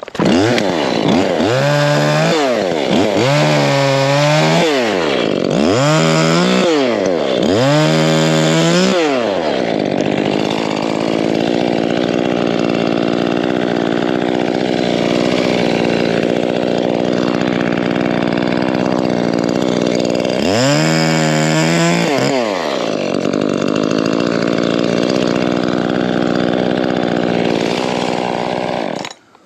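Chainsaw revved up and down four times in quick succession, then held at a steady, lower pitch while cutting limbs. It revs once more about two-thirds of the way through, settles back into the cut, and stops abruptly just before the end.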